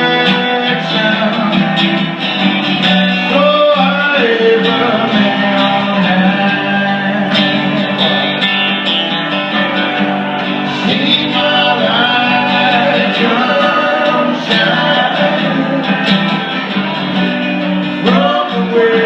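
A voice singing a song with guitar accompaniment.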